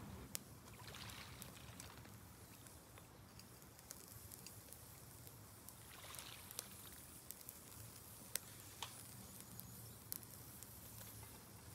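Chicken gizzard skewers grilling over lump charcoal in a shichirin: faint scattered pops and crackles from the coals and dripping fat, over a quiet low hiss.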